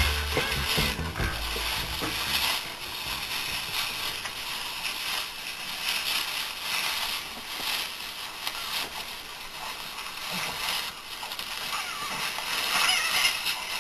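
Steady crunching and rustling, like movement through dry leaves and brush, after a song's last notes fade in the first couple of seconds.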